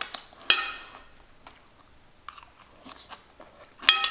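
A person chewing a mouthful of stir-fried vegetables, with faint wet mouth clicks. A metal fork clinks sharply against a ceramic plate twice, about half a second in and near the end, each clink ringing briefly.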